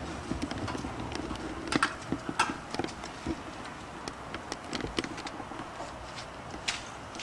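Puppies scuffling with their mother: irregular clicks and taps of claws and a chewed bone, the loudest a few sharp knocks around two seconds in.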